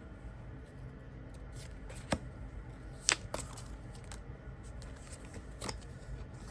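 Tarot and oracle cards being handled, with a handful of sharp light clicks and snaps of card stock over a faint steady room hum.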